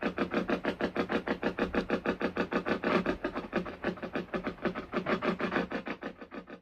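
Spirit box sweeping through radio frequencies: a rapid, even chop of static and snatches of broadcast sound, about ten pulses a second, starting abruptly.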